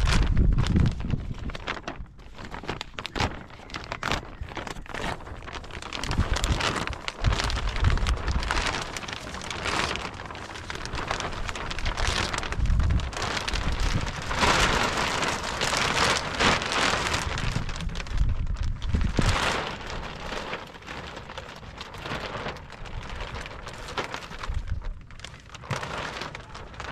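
Large clear plastic sheet rustling and crinkling as it is unfolded and spread out by hand, a dense crackle that swells and fades and is loudest about halfway through, with a few low thumps.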